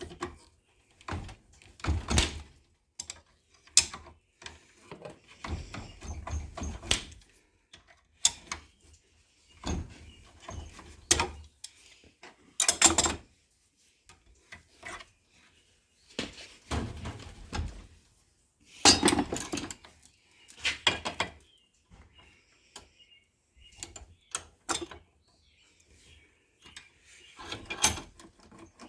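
An ignition lock cylinder being pried and worked out of its housing: irregular clicks, knocks and scrapes in short bursts with pauses between them.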